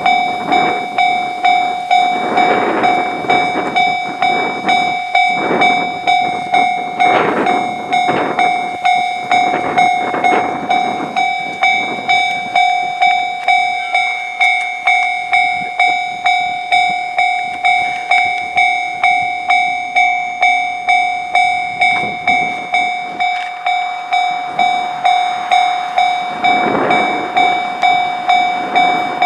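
Japanese level-crossing alarm ringing steadily, a two-tone electronic ding about twice a second. Over the first ten seconds or so an electric train passes with surges of wheel and rail clatter, and the train noise rises again near the end.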